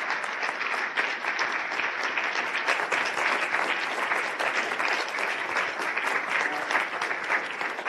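Audience applause: many people clapping at once, steady and sustained.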